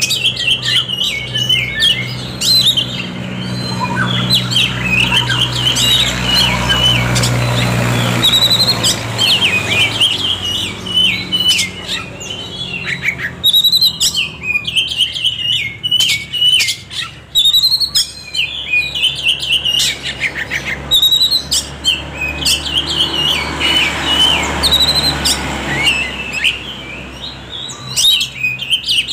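Oriental magpie-robin (kacer) singing a long, varied song of quick chirps, whistles and trills, with brief pauses between phrases.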